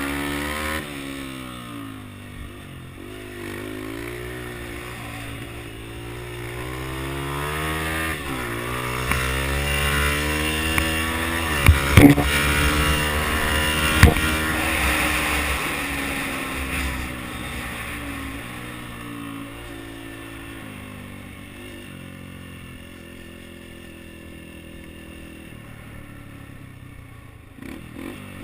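Yamaha TT-R125 dirt bike's small single-cylinder four-stroke engine revving up and down as it is ridden, the pitch climbing and dropping again and again. It grows louder toward the middle, with two sharp cracks about twelve and fourteen seconds in, then fades and settles lower.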